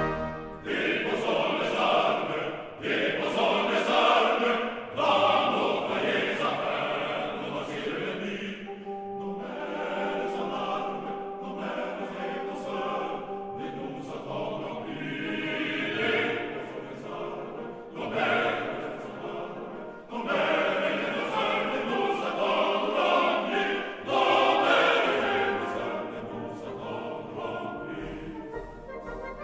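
Background music: a choir singing in phrases, in an operatic style.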